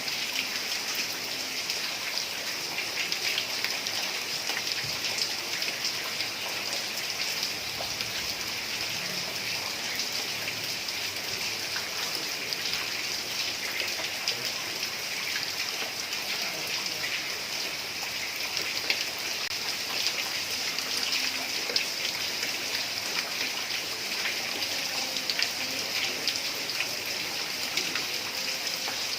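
Heavy rain falling steadily on a tiled roof, an even hiss with scattered drop ticks.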